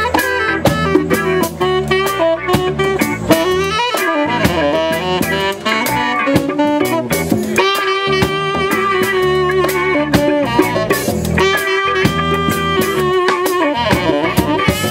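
Saxophone playing a live lead solo, with long held notes among quicker runs, over a band of electric guitar, bass guitar, congas and drum kit.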